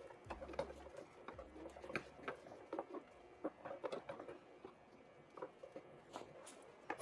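Gloved hands wiping brake fluid off a motorcycle's rear brake caliper and bleeder valve with a rag: faint, irregular rustling with many small clicks.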